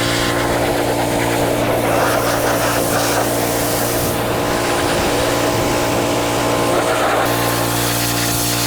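Gas-engine pressure washer running steadily, with the hiss of its water spray that stops about seven seconds in while the engine keeps running.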